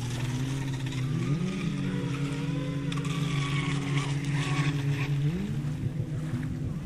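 WLtoys WL913 brushless RC speedboat running on a 4S lipo. The motor's whine climbs in pitch about a second in, holds steady at full speed, then drops and wavers near the end.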